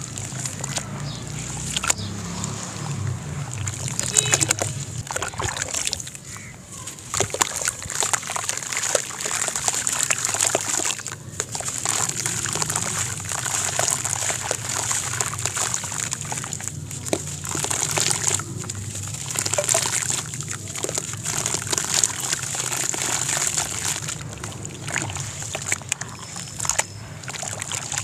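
Hands sloshing, stirring and squeezing crumbled sand-cement block in a plastic tub of water, with wet sand crumbling and splashing back in. The sound swells and fades in repeated waves, full of small wet crackles.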